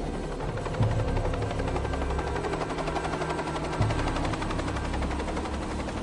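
Light aircraft in flight, its engine and propeller or rotor giving a steady drone with a rapid, even pulsing. Film-score music with deep drum hits about every three seconds sits under it.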